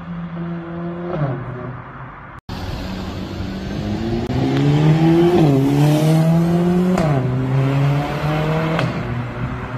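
Mercedes-AMG CLA45 S's turbocharged 2.0-litre four-cylinder, through a valved exhaust with a sport mid-pipe, accelerating hard past the listener. The revs climb and drop sharply at each quick upshift, four times, loudest in the middle of the pull.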